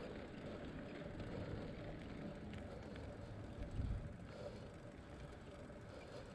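Bicycle rolling along a paved road with wind buffeting the microphone: a steady rolling noise under low gusts, the strongest about four seconds in.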